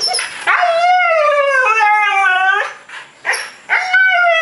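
Siberian husky howl-talking for attention: a short yelp, then one long wavering call that slides down in pitch, and another long call starting near the end.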